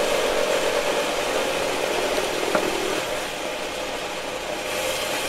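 Cordless reciprocating saws cutting through a thick pecan tree branch: a steady motor whine over the rasp of the blades in the wood. The whine thins out about three seconds in.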